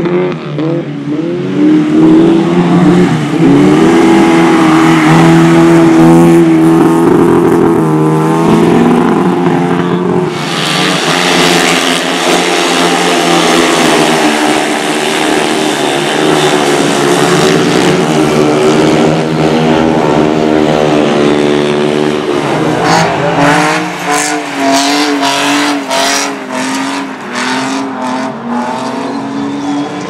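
Racing engines revving hard and rising and falling in pitch as cars and a speedway motorcycle slide on a dirt track, with abrupt changes between clips. A run of sharp crackles comes in the second half.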